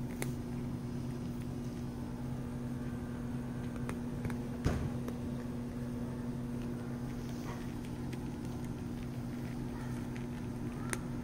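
A steady low machine hum, with a few soft clicks and one sharper knock about halfway through.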